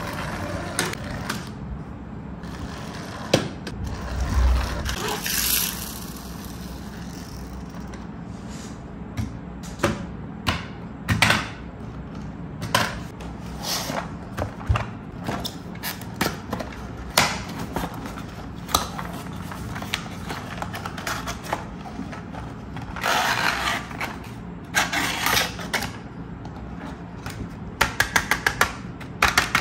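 Hot Wheels plastic track pieces and toy cars being handled: scattered sharp plastic clicks and knocks, with longer scraping stretches about three quarters of the way through and a quick run of rapid clicks near the end.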